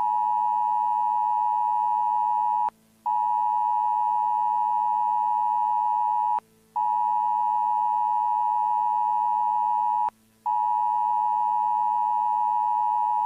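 Emergency broadcast attention tone: a steady, high-pitched electronic beep held for about three and a half seconds at a time, broken by three short gaps, with a faint low hum underneath.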